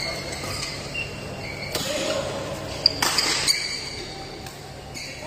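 Badminton rally in a large hall: sharp racket hits on the shuttlecock, the clearest about three seconds in, with short squeaks of shoes on the court mat.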